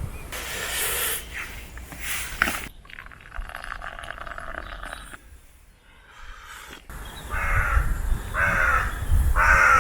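A bird calling repeatedly: about four calls in quick succession in the last few seconds.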